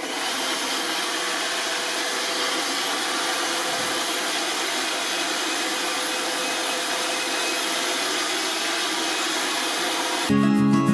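iRobot Roomba robot vacuum cleaner running: a steady whir with a faint steady tone in it, giving way to guitar music near the end.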